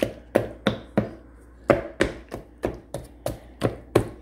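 Knife repeatedly stabbing into raw chicken pieces in a bowl, poking holes so the chicken fries better: a quick series of sharp taps, about three a second, with a short pause a little past a second in.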